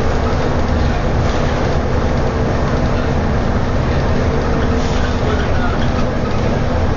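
A city bus's engine and road noise heard from inside the cabin as it cruises steadily at expressway speed: an even drone with a constant whine running through it.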